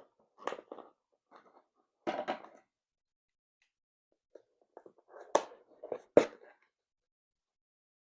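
Handling and opening a gift box: scattered brief rustles and scrapes, with two sharp knocks or clicks about five and six seconds in.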